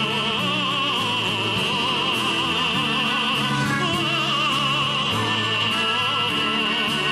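Music: a singer in operatic style holding long notes with wide vibrato over an accompaniment of steady low notes. One short break in the held note comes about halfway through.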